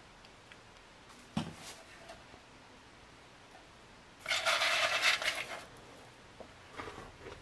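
Light clinks of a plastic spoon and glassware on a stainless steel compartment tray, then a loud scrape lasting over a second about four seconds in, as things are moved and cleared off the metal tray.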